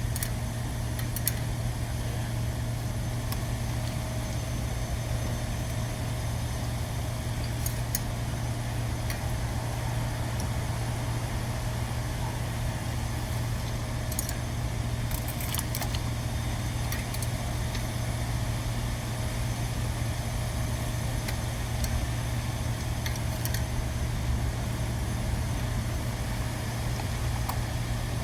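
A steady low mechanical hum, with now and then a light metallic click or clink.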